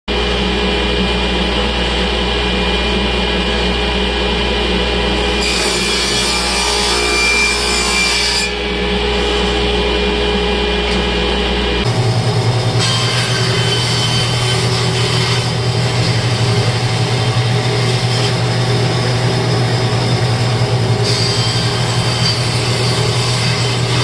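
A table saw running steadily with a low hum, ripping through a wooden strip for about three seconds. About halfway through the sound changes abruptly to a bandsaw running with a low buzz as it cuts thin wooden strips for bee hive frame side bars.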